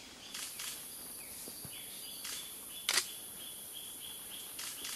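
Rainforest background: a steady high hiss of insects with faint bird calls, broken by a few sharp clicks, the loudest about three seconds in.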